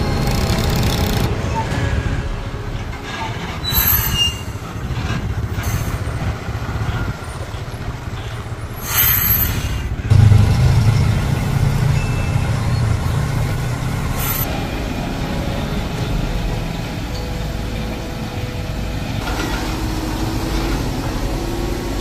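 Heavy-haul semi-truck pulling a loaded lowboy trailer up a slope, its diesel engine running under load with road traffic around it. Two short, sharp hisses come about four and nine seconds in, and the low rumble swells loudest about ten seconds in.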